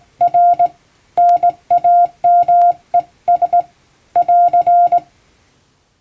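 Hand-keyed Morse code (CW): a steady beep of about 700 Hz keyed on and off in dots and dashes, grouped into letters, stopping about five seconds in.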